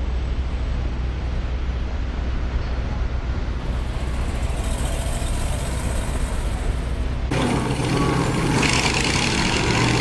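Heavy truck engine running with a steady low rumble, an added sound effect rather than the film's own sound. About seven seconds in it switches abruptly to a louder, noisier engine recording.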